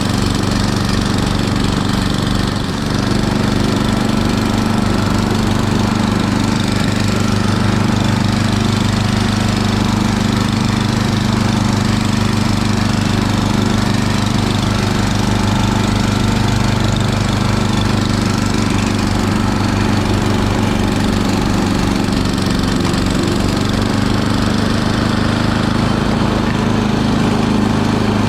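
Small engine running steadily with a fast, even pulse.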